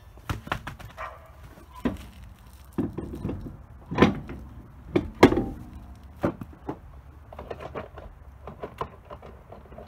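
A car wheel being fitted back onto the rear hub: a string of irregular knocks and metallic clinks as the wheel is set on the studs and the lug nuts are put on by hand. The loudest knocks come about four and five seconds in.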